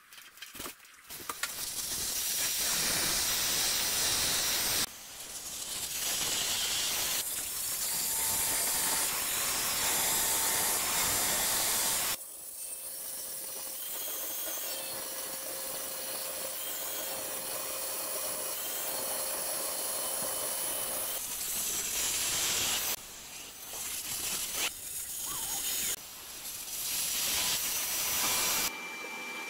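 Angle grinder with a sanding disc running and grinding along the edge of a countertop's sink cut-out, with a high motor whine; it stops and starts again several times.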